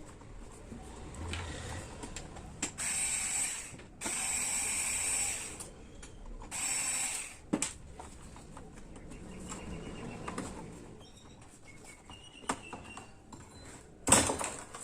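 A small electric motor whirring in three short bursts of about a second each, with clicks and handling noise after, and a sharp knock near the end.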